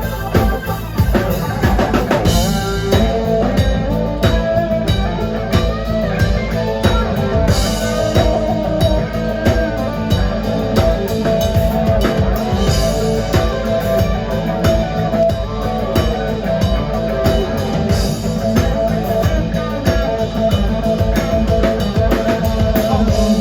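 Rock music with a drum kit keeping a steady beat under electric guitar.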